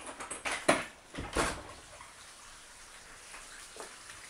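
A handful of sharp knocks and clatters in the first second and a half, the loudest near the middle of that stretch, then only a low steady background.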